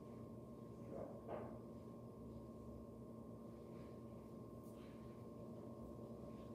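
Large multi-blade ceiling fan running: a faint steady motor hum with soft air noise, and two faint short sounds about a second in.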